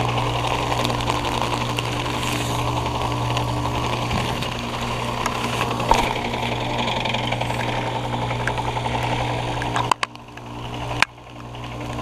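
Carrier Comfort heat pump outdoor unit in its defrost cycle, the compressor running with a steady low hum and machine noise, alongside a second outdoor unit running normally. The sound drops sharply twice near the end.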